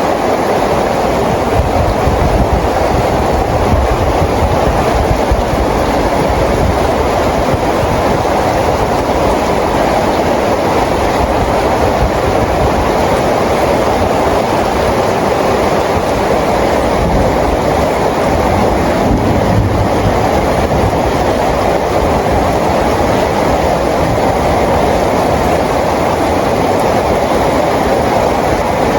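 Steady rainfall: a continuous, even rush of rain with a low rumble underneath, unchanging throughout.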